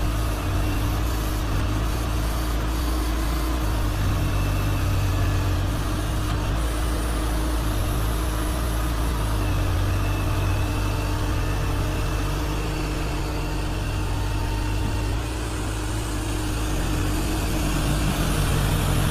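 Diesel engine of a wheeled excavator running steadily while its grapple handles logs, a low engine hum whose note shifts slightly a few times.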